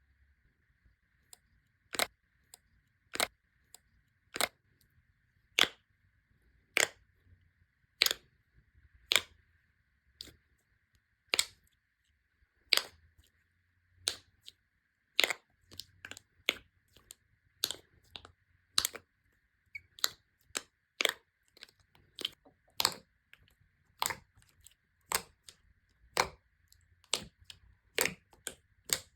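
Crisp clicks and pops of slime being pressed and squeezed by hand, at first about one every second, then quicker and less regular from about halfway through.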